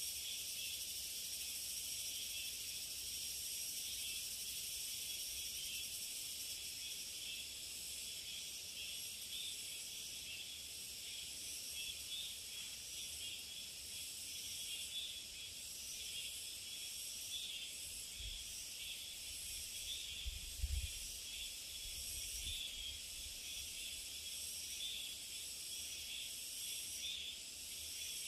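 Steady, high-pitched chorus of summer insects chirring. A few soft low thumps come about two-thirds of the way through.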